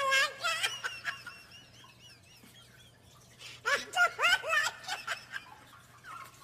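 A person laughing in high-pitched giggles, in two bouts: one right at the start and another about halfway through, with a quieter stretch between.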